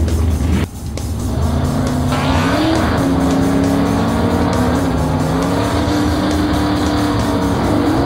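Race-car engine sound effects revving and running at speed, with background music under them. The engine sound cuts out briefly about a second in, then climbs in pitch and holds a steady high drone.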